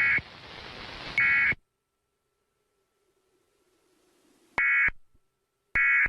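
Emergency Alert System digital data bursts marking the end of the alert message. There are four short two-tone bursts of about a third of a second each: two in the first second and a half, then near silence with a faint hum creeping in, then two more near the end, the last cut off.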